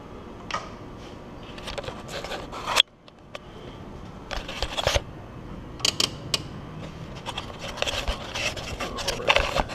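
Scraping and rubbing as hands work a wiring-harness lead down between the intake runners of a 2JZ engine, with handling noise close to the microphone. The noise comes in irregular scrapes and a few sharp clicks, and cuts out briefly about three seconds in.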